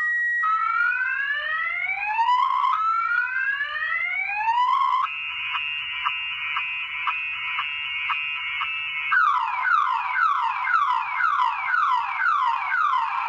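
Viper car alarm siren in panic mode, cycling through its tones. It gives two rising sweeps of about two seconds each, then a steady pulsing tone about two or three beats a second, then fast falling sweeps about three a second.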